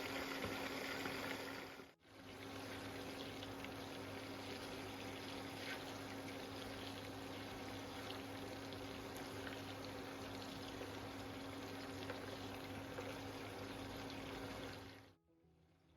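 Mutton cooking in a karahi, its liquid bubbling steadily, with a low steady hum underneath. The sound cuts out briefly about two seconds in and stops abruptly near the end.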